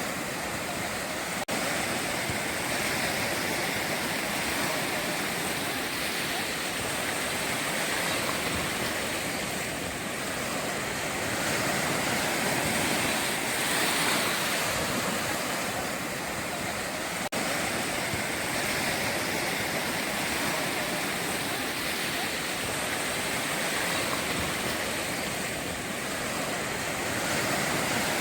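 Atlantic surf: ocean waves breaking and washing up a beach in a steady rush that slowly swells and eases.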